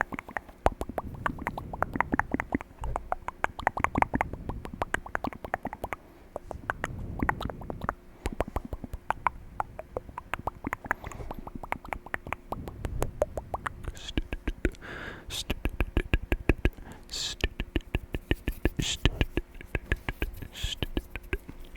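Close-miked mouth sounds: quick runs of wet clicks, pops and lip smacks, with brief pauses between runs.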